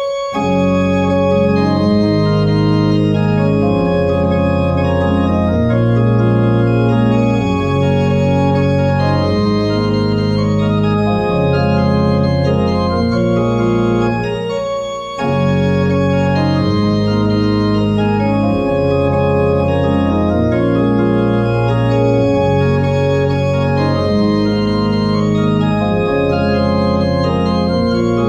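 Church pipe organ playing a free prelude: held chords over a bass line that moves every second or two, with a brief break about halfway through.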